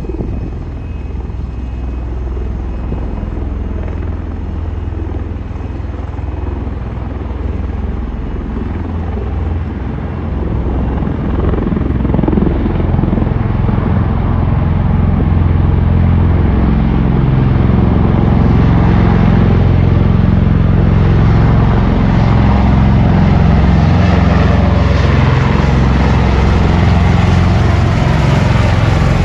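Rotor noise of a formation of MV-22 Osprey tiltrotors and white-topped Marine One helicopters lifting off and climbing: a deep, choppy low rumble that grows louder from about a third of the way in and then stays loud.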